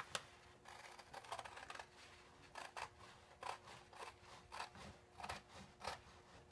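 Scissors cutting through cotton photo fabric backed with wax paper: a series of quiet, short snips, roughly one every half second to second, as the blades work along a straight line.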